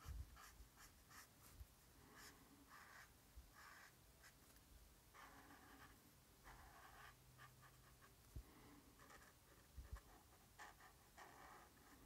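Pen tip scratching across sketchbook paper in short, irregular strokes, with a few soft low knocks of the hand or pen against the book.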